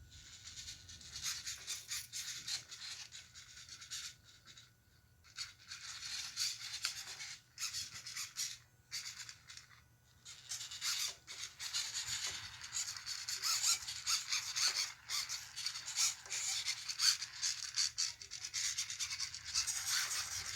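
Scratchy rubbing noise coming and going in short patches, with brief lulls.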